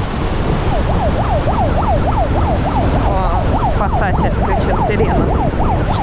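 A siren warbling rapidly up and down, about three quick sweeps a second, starting about a second in, over steady wind and surf noise.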